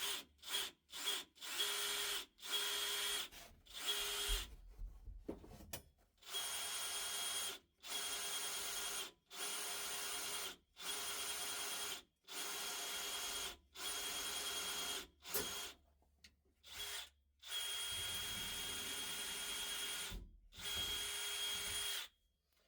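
Power drill running in repeated on-off bursts of one to two seconds, drilling a vent hole in a roll-bar tube so the hot air can escape when the tube is welded shut.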